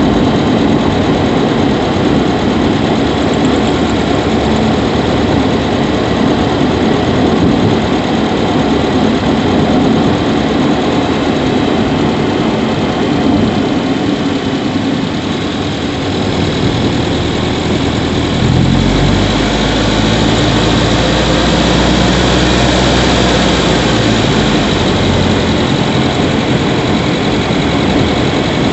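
Subaru Levorg 1.6GT-S turbocharged flat-four running, heard from inside the engine bay near the intake. About two-thirds of the way through, the note deepens and a pitched drone rises and falls as engine speed and load change.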